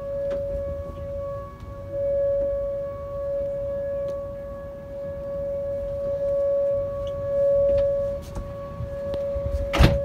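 Outdoor tornado warning siren sounding one steady tone, swelling and fading in loudness, over a low rumble. A sharp knock comes just before the end.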